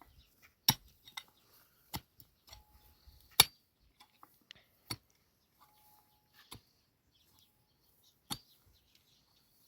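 Sharp strikes of a hand tool, about six of them, spaced roughly a second and a half apart, the third the loudest.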